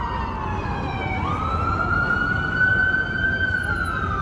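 Emergency vehicle siren wailing. Its pitch slides slowly down, jumps back up about a second in, climbs slowly, and starts falling again near the end.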